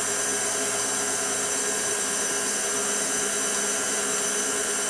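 KitchenAid stand mixer's electric motor running steadily, its beater mixing a thick cake batter of applesauce and flour, with a constant whine made of several steady tones.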